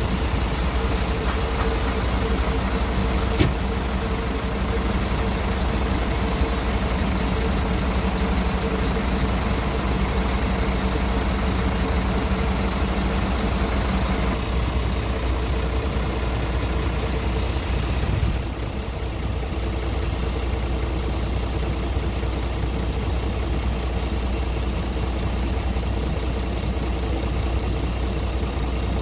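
Scania R tractor unit's diesel engine idling steadily. A higher hum drops out about 14 seconds in, and the sound gets slightly quieter after about 18 seconds. One sharp click about 3.5 seconds in.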